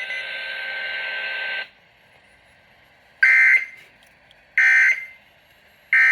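NOAA Weather Radio end of an alert: a steady hiss of radio noise for about a second and a half, then three short identical electronic data bursts a little over a second apart, the SAME end-of-message code that closes the warning.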